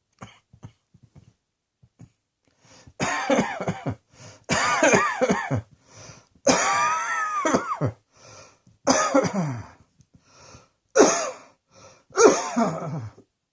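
A person coughing in a series of loud, voiced coughing fits, about six of them starting around three seconds in, each falling in pitch, with short pauses between.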